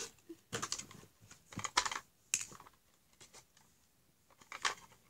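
Irregular clicks and crackles of stiff plastic toy packaging being handled and pried open, with short quiet gaps between them.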